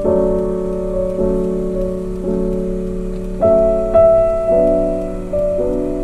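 Background music: slow, sustained keyboard chords, changing about once a second.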